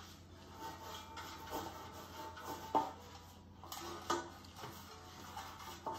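Pastry brush rubbing oil around the inside of a metal loaf pan, with two light knocks against the pan about three and four seconds in.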